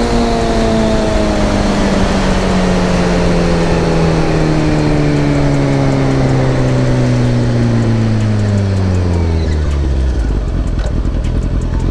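Motorcycle engine winding down as the throttle is rolled off and the bike slows, its note falling steadily for about ten seconds and settling low near the end, with loud wind rush.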